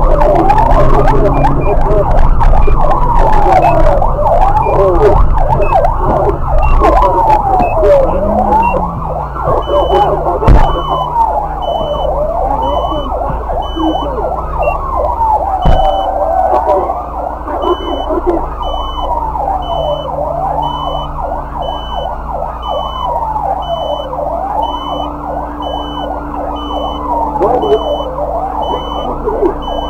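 Police siren wailing, rising and falling about every two and a half seconds, over a vehicle's engine that quietens after about eight seconds. Two sharp knocks cut through, about ten and sixteen seconds in, and from about ten seconds in a high beep repeats about twice a second.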